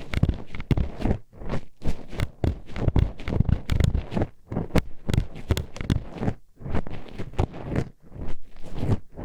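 Metal hairpins poked and scraped inside the ear of an ASMR microphone: a quick, irregular run of clacks and taps, several a second, with scratchy rubbing between them.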